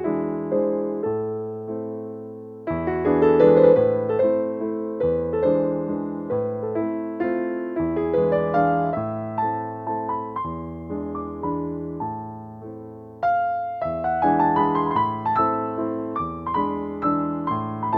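Background music: a solo piano piece played gently with steady chords, a new phrase entering twice.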